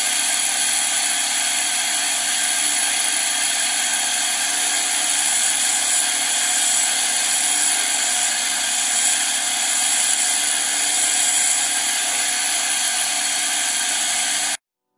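Motor-driven grinding wheel sharpening the teeth of a sawmill band saw blade: a steady high whine with grinding hiss, which cuts off suddenly near the end.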